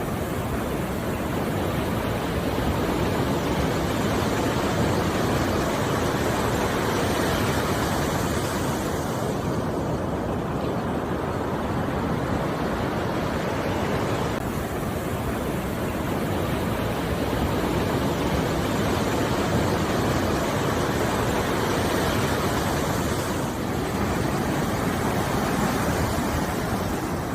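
Steady rushing of water, swelling and easing slowly every several seconds.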